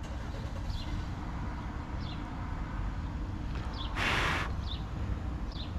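A small bird chirping over and over, short high notes that fall in pitch, over a low steady background rumble. A short hiss about four seconds in.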